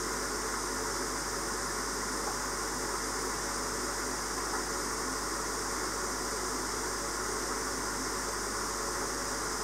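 Steady, unchanging hiss with a low hum beneath it.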